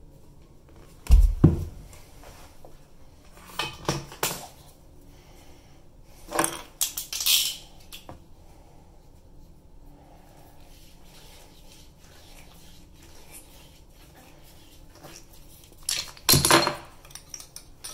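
Metal clinks and clatter from handling a chrome toilet supply tube and a tube bender, in four separate bursts with quiet between. The first, about a second in, comes with a dull knock, and the last, near the end, is the loudest.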